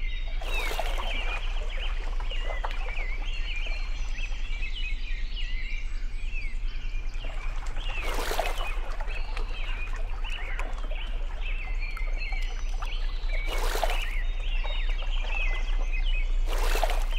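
Many small birds chirping in a steady background chorus, with a splash of water four times as goldfish are let go into a shallow pond, the first about a second in and the last near the end.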